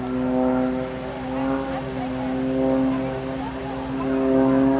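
Aviat Pitts S-2C aerobatic biplane's six-cylinder Lycoming engine and propeller droning steadily in flight, the pitch drifting slowly up and down as the aircraft manoeuvres.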